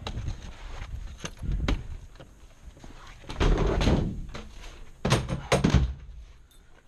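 A series of knocks and thumps, like doors being shut and gear being handled, with short stretches of rough rustling and scraping; the loudest come about halfway through and again near the end.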